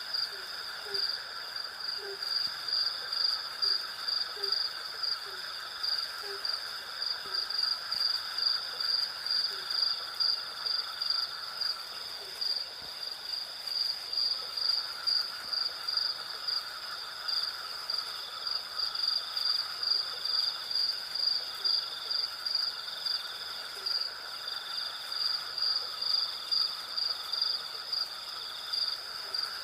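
Night insect chorus: crickets chirping in an even, high-pitched pulse, over a steadier, lower insect drone that dips for a couple of seconds in the middle. Faint short, low calls sound now and then underneath.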